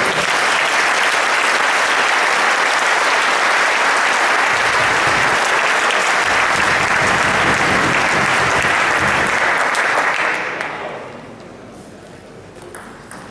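Audience applauding, dense and steady for about ten seconds, then dying away. Near the end a few sharp clicks of a table tennis ball being struck as play resumes.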